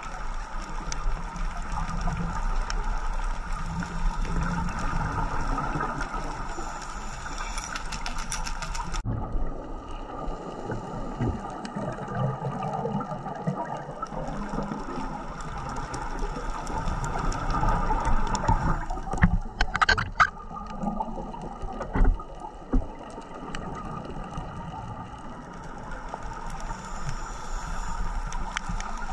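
Underwater sound picked up through a dive camera's housing: a steady watery hiss full of small crackling clicks, which changes sharply about nine seconds in, with a short burst of bubbling about twenty seconds in.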